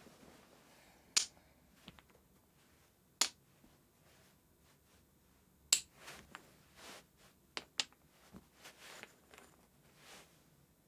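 Small wooden blocks clacking together as they are handled and stacked: a few sharp, irregular clicks a second or two apart, two close together near the end, with soft rustling between.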